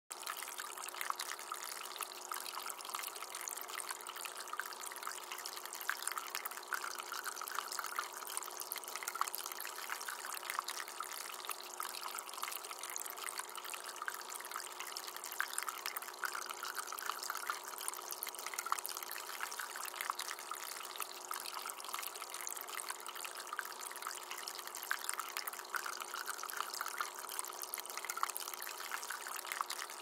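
Water trickling and splashing steadily as it cascades down the tiered basins of a small resin tabletop waterfall fountain.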